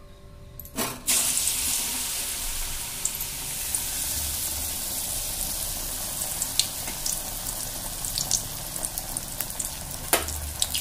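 A gram-flour-battered brinjal slice goes into hot oil about a second in, and the oil then sizzles and bubbles steadily around the frying bajji, with scattered small crackling pops.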